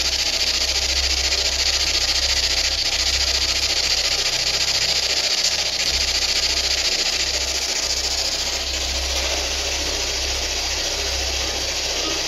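Steady hiss with a low hum underneath that comes and goes in stretches, and no distinct event.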